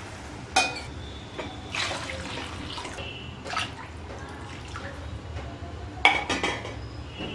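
Water poured from a steel cup into a kadai of rice, splashing and running into the pan. A few short knocks are heard, the loudest about six seconds in.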